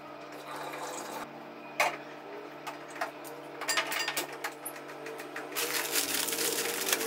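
Kitchen handling sounds: a steel pot knocking onto a gas stove and a quick run of clicks at the burner as it is lit, then the crinkling of a plastic instant-noodle packet near the end, over a faint steady hum.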